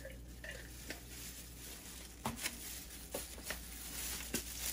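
A few light clicks and taps from kitchen containers being handled, mostly in the second half, over a low steady hum.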